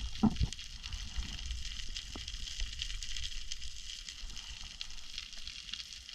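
Underwater ambience: a steady, dense crackle, with a few low knocks in the first half second.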